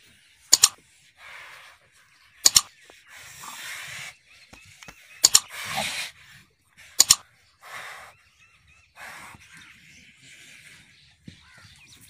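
Four sharp double clicks, spaced about two seconds apart, from the mouse-click sound effect of a like-and-subscribe button animation. Short bursts of rough, hissing noise come and go between them.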